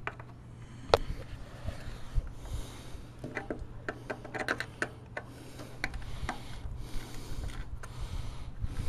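Scattered clicks and small knocks from hands and tools working on the carburetor while it is drained: the small Tecumseh engine floods easily. One sharp click comes about a second in, and a quick run of ticks follows a few seconds later, over a steady low hum.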